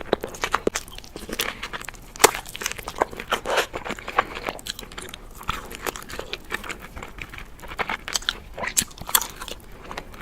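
Close-miked crunching and chewing of crispy fried Wingstop food in a mukbang: many sharp, irregular crunches as bites are taken and chewed.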